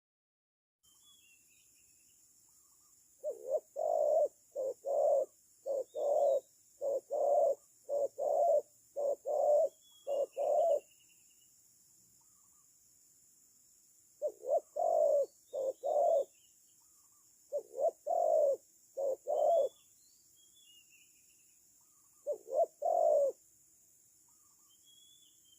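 Spotted dove cooing: low, mellow coos in paired and three-note phrases. One long run of phrases is followed, after pauses, by three shorter bursts. Faint high chirps of small birds and a steady high hiss lie underneath.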